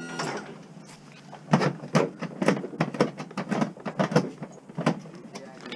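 A van's electric wheelchair lift motor humming steadily, cutting off just after the start as the lift stops. It is followed by a run of sharp knocks and clunks, about two a second, from about one and a half seconds in until near the end.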